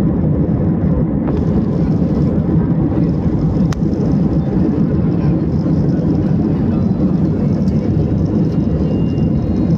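Steady roar of an airliner's engines and airflow heard inside the passenger cabin, a constant low rumble.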